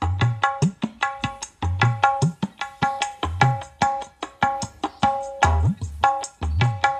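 Drum-led music played through a bare 6-inch midrange speaker that is wired without its electrolytic capacitor, so the low notes come through strongly. It is a quick run of sharp hand-drum strokes with ringing pitched tones, under deep bass drum notes that swoop upward in pitch.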